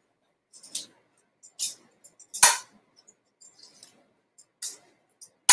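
Metal tongs tossing salad greens in a metal bowl: scattered light clicks and scrapes of the tongs against the bowl, with a sharper clink about two and a half seconds in and another near the end.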